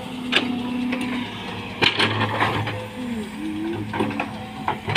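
Heavy diesel machinery running steadily while an excavator loads mud, with several sharp knocks and clanks, the loudest around two seconds in and near the end.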